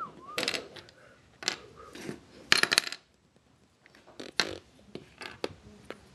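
Hard plastic pieces of a 3x3 puzzle cube clicking and clattering as they are handled and pushed into the partly reassembled cube, in irregular clicks and short rattles, loudest about two and a half seconds in.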